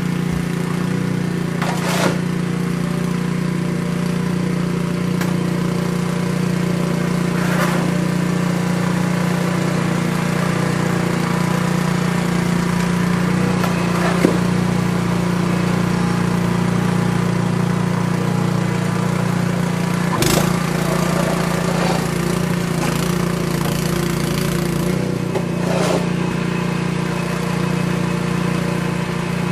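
An engine running steadily at a constant pitch, with a few brief knocks or scrapes over it.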